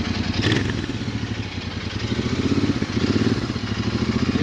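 Motorcycle engine running with a rapid, even exhaust beat, the throttle opened to swell it twice.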